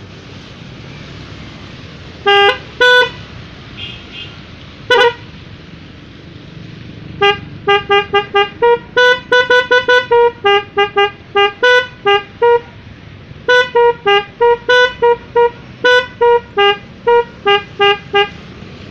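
Telolet multi-tone horn on a motorcycle playing a tune of short toots: a few separate toots in the first five seconds, then a long quick run of about thirty notes alternating between a few pitches from about seven seconds in.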